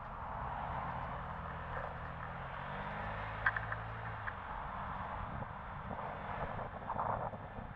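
Steady outdoor traffic-like noise with a low engine hum through the first half, and a few light clicks about three and a half seconds in.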